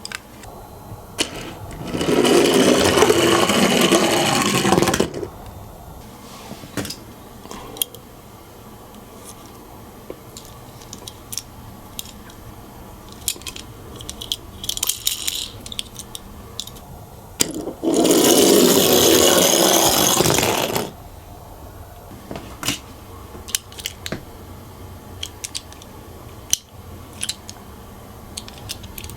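Miniature toy cars running down a slope twice. Each run is a loud rolling rattle lasting about three seconds. Between the runs, the toys give small clicks and knocks as they are handled.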